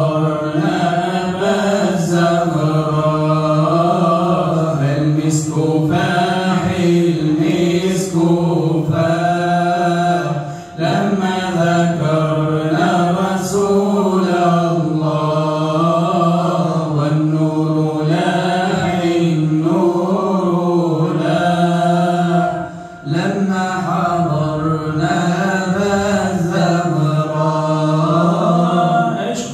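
Unaccompanied male voice chanting an Islamic devotional hymn in long, drawn-out melodic phrases, with brief breath breaks about 11 and 23 seconds in.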